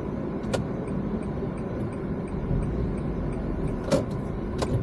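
Steady road and engine rumble of a car driving slowly, heard from inside its cabin. Three sharp clicks come through: one about half a second in, and two near the end. Faint, evenly spaced ticking runs under the rumble.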